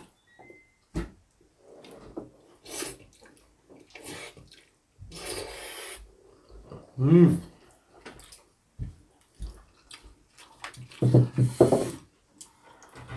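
Jjajangmyeon noodles being slurped and chewed, with chopsticks clicking against a ceramic plate. A short voiced 'mm' comes about seven seconds in, and a louder clatter with low voice sounds near the end.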